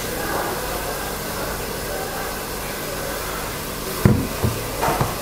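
Steady background hiss and low hum. About four seconds in there is a sharp knock as a sauce bottle is set down on a stainless-steel worktop, followed by a couple of softer knocks.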